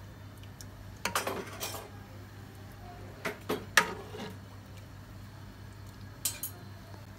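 Metal ladle clinking and scraping against a steel cooking pot and a serving bowl as curry is ladled out: a quick run of clinks about a second in, a few sharper knocks a little past halfway, and one more near the end, over a steady low hum.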